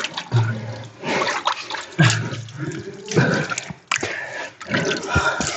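Water sloshing and splashing as people move about in a pool of cave water, with men's short voice sounds in between.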